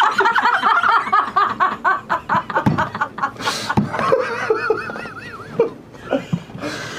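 Several people laughing hard together, with a quick run of laugh pulses over the first few seconds and a wavering high laugh, then dying down near the end.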